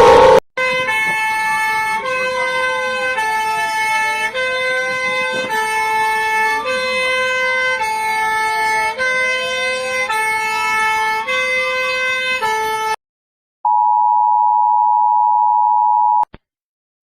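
Emergency alert system alarm: a two-tone high-low siren alternating steadily, with a slower tone rising and falling under it. After a brief break it changes to a single steady tone for a few seconds, which cuts off sharply.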